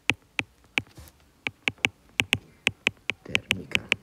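A stylus clicking against a tablet screen as a word is handwritten: a quick, irregular run of sharp clicks, about three or four a second.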